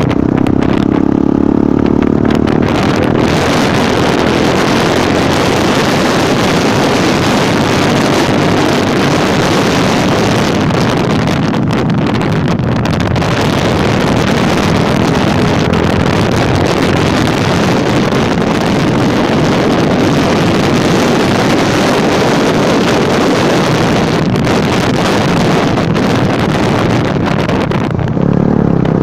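Motorcycle riding at road speed: a loud, steady rush of wind on the microphone with the engine running underneath, its note showing through more clearly in the first few seconds.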